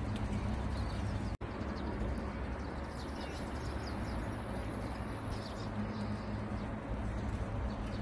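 Wild birds chirping in short, scattered calls over a steady low rumble, with a thin high tone for a couple of seconds mid-way. The sound cuts out completely for an instant a little over a second in.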